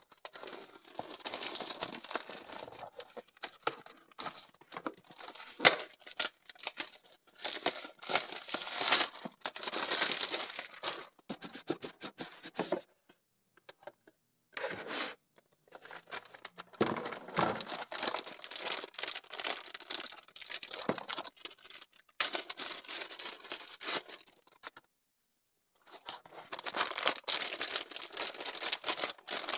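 Shrink-wrap and plastic packaging crinkling and tearing under the hands, with scraping and clicks from handling a cardboard box. The rustling drops out abruptly to dead silence several times.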